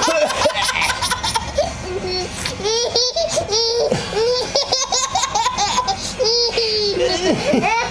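A 13-month-old baby laughing in a long run of short, high-pitched giggles and belly laughs.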